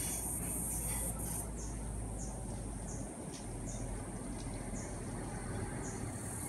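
A chorus of insects buzzing steadily at a high pitch, thinning after about a second and a half and coming back near the end, with short high falling chirps repeating roughly twice a second.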